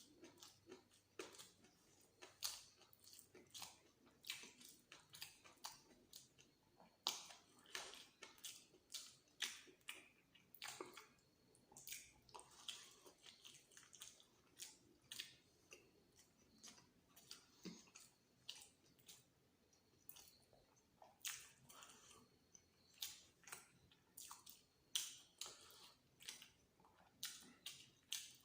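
A person chewing a mouthful of egg masala and luchi, with frequent short wet smacks and clicks coming irregularly, one to three a second.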